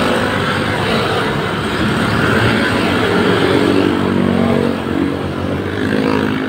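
Road traffic passing close by: motorcycles and cars going past, a continuous wash of engine and tyre noise with the engine notes of passing vehicles swelling and fading.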